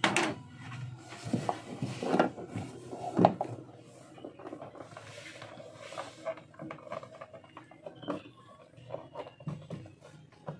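Handling noises on a bus dashboard while strobe light wiring is fitted: several knocks and taps in the first few seconds, the loudest a little after three seconds in, then fainter scattered clicks and rustling.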